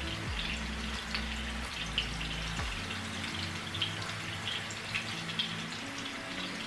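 Meatballs frying in a pan, sizzling steadily with scattered small crackles and pops.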